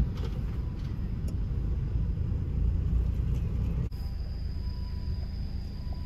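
Low road and engine rumble heard from inside a moving car's cabin. It cuts off suddenly about four seconds in, giving way to a quieter low hum with a faint steady high tone.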